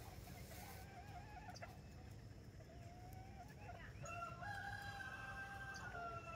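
Rooster crowing: one long crow starting about four seconds in, dropping in pitch at the end, after a few shorter chicken calls.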